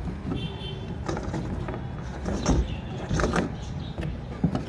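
A few scattered knocks and scrapes as plastic tank-nipple fittings are handled and screwed tight on a water tank, over a steady low rumble.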